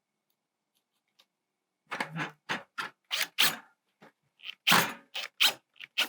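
Short scrapes, clicks and knocks of screws and vent hardware being handled and fastened by hand, about ten in quick, irregular succession starting about two seconds in.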